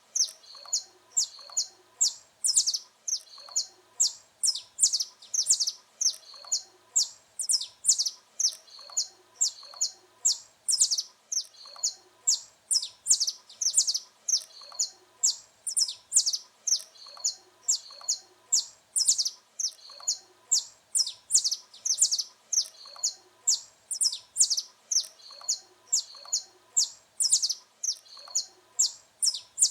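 Saffron finch (canário-da-terra) singing: short, high chirping notes repeated at a steady pace, about two a second, with no pause.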